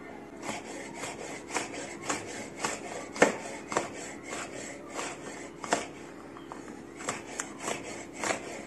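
Kitchen knife slicing long green peppers into thin rings on a wooden cutting board, a steady run of short knife-on-board knocks, about two to three cuts a second.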